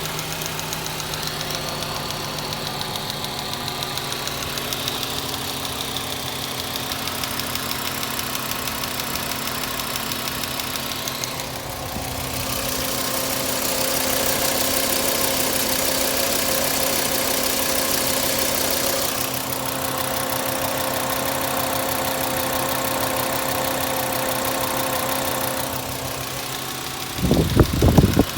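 Volkswagen Jetta 2.5-litre five-cylinder engine running steadily at a constant pitch, with the weird noise that is being shown, though its nature is not stated. A louder hiss joins in for several seconds in the middle, and a few loud thumps come near the end.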